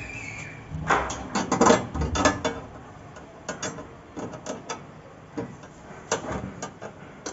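Metal clicks and clanks as a gas strut is handled and fitted onto a steel bed-lift mechanism frame, with a dense run of sharp clicks about a second in, then scattered clicks.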